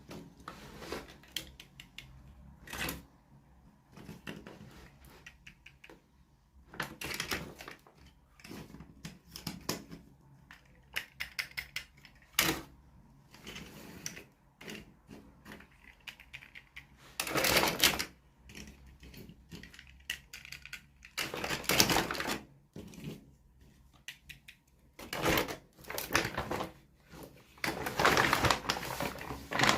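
Hands unboxing small plastic toys: irregular clicks and taps of plastic pieces, with several louder bursts of crinkling and rustling packaging.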